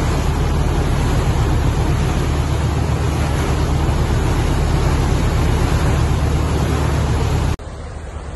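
A boat's engine running steadily under way, with a low hum under the rush of the propeller wash churning the wake at the stern. The sound drops sharply near the end to a quieter sea-and-wind hiss.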